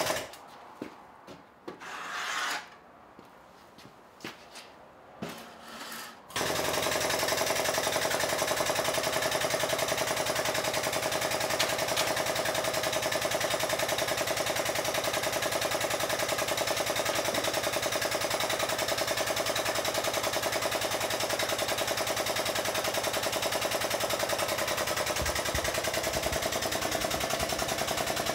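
A handheld pneumatic air tool working a sheet of metal. It starts about six seconds in and runs on with a rapid, even rattle. Before that there are only a few quiet knocks and a brief hiss.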